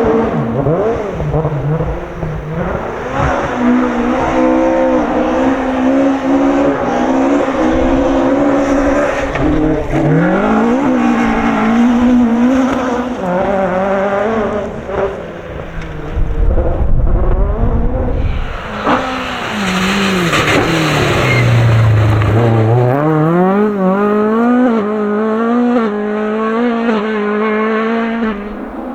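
Rally-prepared Ford Escort engine at high revs, repeatedly climbing and dropping in pitch as it changes gear, with a deep low rumble midway and a dip to low revs followed by a climb back up near the end.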